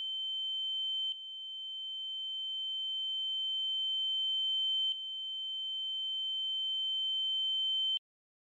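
A steady, high-pitched electronic ringing tone with a fainter lower tone beneath it. It swells slowly three times, restarting with a small click about a second in and again about five seconds in, and cuts off suddenly near the end.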